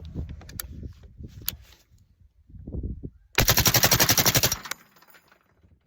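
A short burst of rapid fully automatic fire lasting just over a second, about eleven shots a second, from the Lima6 belt-fed AR-15 upper receiver. Faint knocks come before it.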